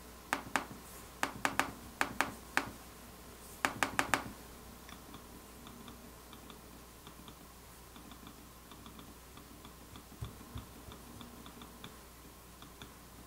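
A traditional mechanical MacBook trackpad pressed repeatedly, giving about a dozen sharp clicks over the first four seconds. Then the 2015 MacBook Pro's Force Touch trackpad is pressed repeatedly, and its taptic-engine clicks are only faint, light ticks.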